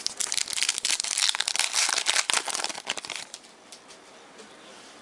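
Foil wrapper of a football trading card pack being torn open and crinkled: a dense crackle lasting about three seconds that dies away.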